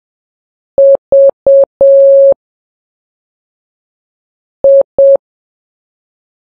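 Morse code practice tone, a single steady beep keyed on and off at slow practice speed. Three short beeps and a long one (dit-dit-dit-dah, the letter V), then after a long gap two short beeps (dit-dit, the letter I).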